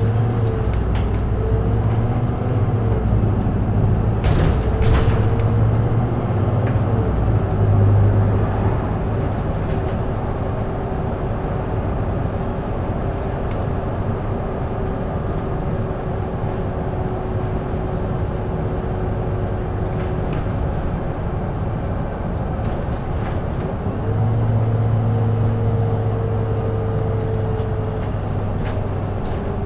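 Volvo B7RLE city bus heard from inside the cabin: its rear-mounted six-cylinder diesel pulls hard with a deep drone for the first eight seconds or so, then settles to a steadier hum under road noise while the bus cruises. It works harder again about 24 seconds in. A faint whine rides over the engine for much of the ride.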